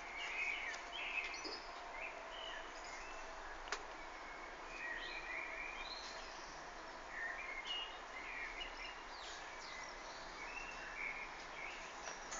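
Birds chirping and calling in short, scattered phrases over a steady background hiss, with one sharp click a little over a third of the way through.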